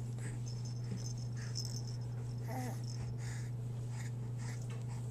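A baby of almost five months mouths its fist and gives one brief coo about halfway through. Light toy rattling sounds now and then, over a steady low hum.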